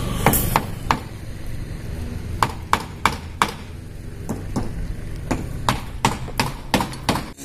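Hammer blows on timber, a dozen or so sharp knocks coming a few at a time at an uneven pace: nailing up wooden formwork boards for concrete columns.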